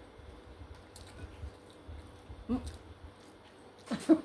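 Faint small clicks and taps of eating at a table, over low handling rumble, with a short vocal sound about two and a half seconds in and a louder brief one near the end.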